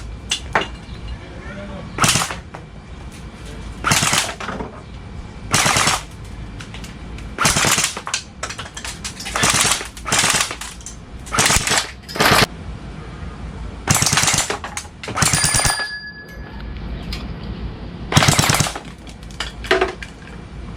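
Airsoft assault rifle firing short full-auto bursts, about a dozen bursts one to two seconds apart, shooting up 3D-printed Benchy boats and failed prints.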